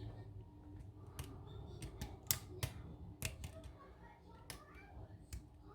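Lock pick working the pins of a pin-tumbler lock: a string of small, irregularly spaced clicks, the loudest about two seconds in.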